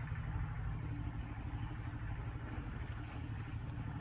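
A running motor's steady low hum, even in loudness throughout.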